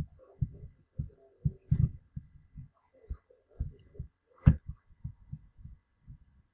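Irregular low, muffled thumps, several a second and uneven, with one sharper knock about four and a half seconds in.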